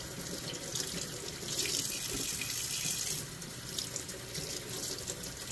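Kitchen faucet running onto a round scad (galunggong) and the hands rinsing it in a stainless steel sink, the water splashing steadily. The splashing grows louder for about a second and a half in the middle as the fish is worked under the stream.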